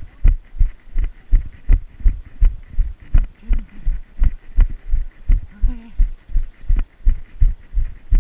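A runner's footfalls on a dirt trail, heard as heavy low thumps through the body-mounted action camera, steady at about three strides a second.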